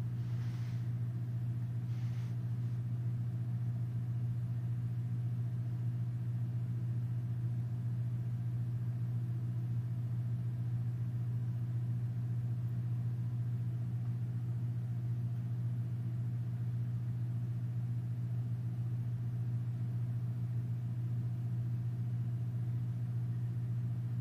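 A steady low hum that does not change, with a few faint overtones. Two faint brief rustles come near the start.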